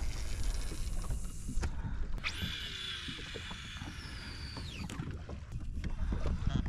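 Wind and water noise around a small fishing boat. About two seconds in, a high mechanical whine starts with a quick upward sweep, holds for under three seconds and winds down as it stops.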